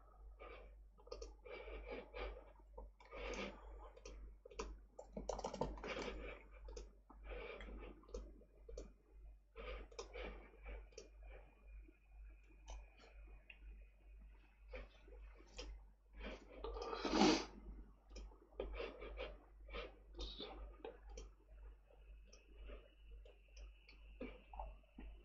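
Computer keyboard typing and mouse clicks, faint and irregular, with one louder brief rush of noise about two-thirds of the way through.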